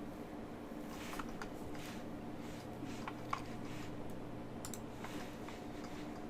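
Steady low electrical hum from the computer setup, with a scatter of faint clicks from a computer mouse, one sharper click about three seconds in.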